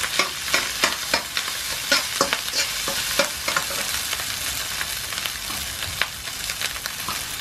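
Boiled rice and garlic sizzling in hot palm oil in a non-stick wok, with a metal spatula clacking and scraping against the pan as it is stirred. The spatula strokes come thick and fast for the first few seconds, then thin out while the sizzle carries on steadily.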